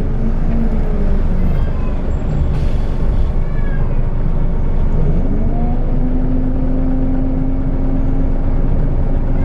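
Scania L94UB bus running under way, with low engine rumble and a pitched whine from the driveline and ZF HP502C automatic gearbox. The whine falls and rises as the bus changes speed and gear, dips and climbs again about five seconds in, then holds steady.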